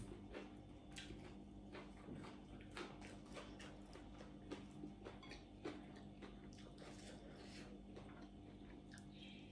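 Quiet eating sounds: chewing and small mouth noises, with scattered light clicks and rustles as food and fresh greens are picked from a plate by hand, over a faint steady hum.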